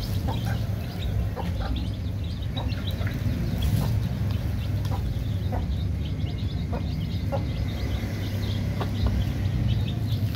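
A hen clucking and her chicks peeping in many short, scattered calls while they feed, over a steady low rumble.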